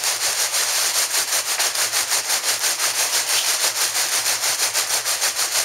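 Flexible coal auger running, its spiral turning inside a 1.5-inch hose and pushing damp coal out of the open end: a steady scraping hiss that pulses about five times a second.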